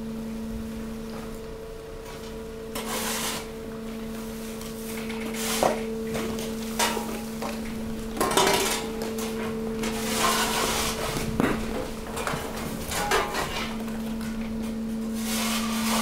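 Hydraulic waste press running with a steady hum while mixed waste shifts and tumbles in its metal chamber, with irregular crunching, rustling and clattering knocks. The hum drops out for a moment about two thirds of the way through.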